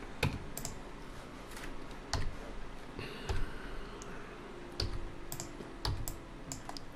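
Computer keyboard keystrokes: about a dozen short clicks at irregular spacing as shortcut keys are pressed.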